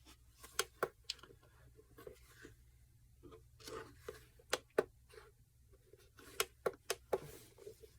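Scattered light clicks and taps, about ten spread unevenly, from the buttons of a digital calendar alarm clock being pressed to step through its settings menu.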